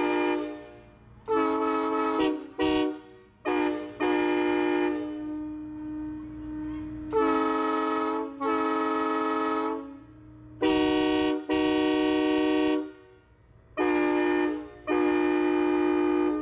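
Nathan AirChime cast train horns, air-powered multi-chime locomotive horns, blowing their chords in a string of blasts of about a second each. A quieter steady horn tone holds through the middle.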